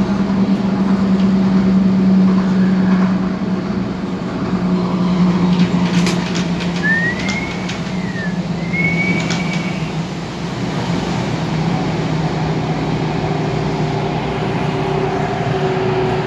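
MTR Tung Chung Line A-Train heard from inside the car while running at speed: steady rumble of wheels on track and a low motor tone that steps slightly lower in pitch, with two short high-pitched squeals about halfway through.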